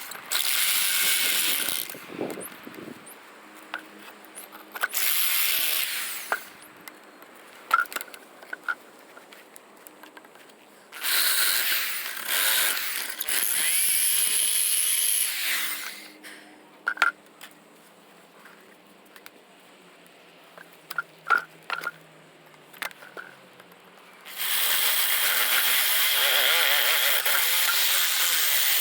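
A power tool runs in four bursts of a few seconds each, the longest lasting about five seconds. Scattered clicks and knocks come between the bursts.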